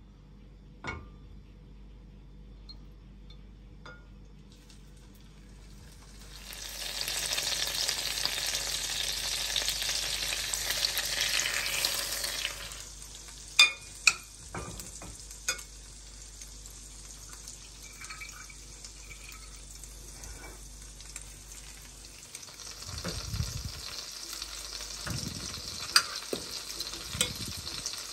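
Batter-soaked slices of bread frying in hot oil in a pan: a loud sizzle starts about six seconds in as a slice goes in, settles to a steady softer sizzle after about six seconds, and swells again near the end as a second slice is added. A few sharp clicks of utensils against the glass batter bowl come in the middle.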